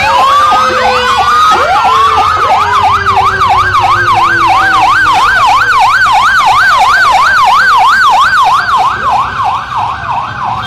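Several police vehicle sirens sounding at once, loud. A fast yelp rises and falls about three times a second through most of the stretch. Slower wailing sweeps overlap it in the first couple of seconds, along with a lower tone that slowly falls in pitch.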